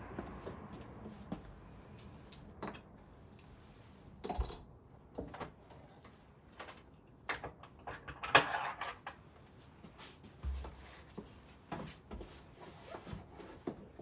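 Keys jingling and a front-door lock and handle being worked, a run of scattered clicks and knocks with a louder jingling rustle about eight seconds in.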